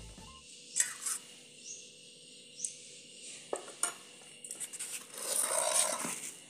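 A metal spoon clinking a few times against a stainless steel bowl, sharp separate ticks over the first four seconds, then a louder noisy rustle about five seconds in.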